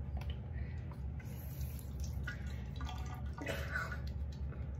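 Water dripping and splashing at a bathroom sink as wet hands rub a bar of soap into a lather, over a steady low hum.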